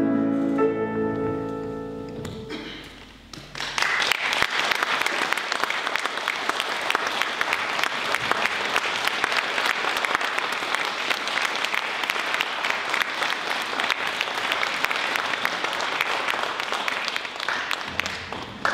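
Slow closing music fades out over the first few seconds. Then an audience claps steadily for about a quarter of a minute, tailing off near the end.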